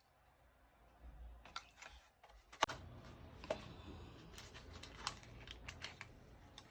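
Close-miked eating sounds: a run of sharp clicks and crackles of mouth, food and utensils or packaging, the loudest about two and a half seconds in.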